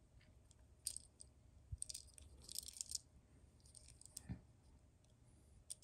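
Near silence with scattered faint clicks and light rustling from a tiny plastic toy car being handled and turned over in the hand.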